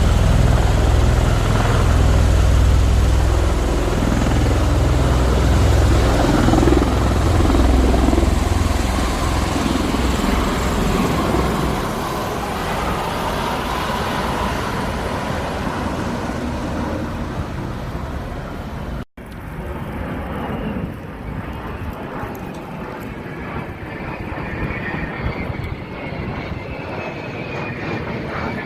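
Military aircraft noise: a heavy low rumble with a pulsing low end for the first part, easing into a steady broad roar. After a brief dropout about two-thirds of the way in, a quieter stretch follows, with a faint rising whine near the end.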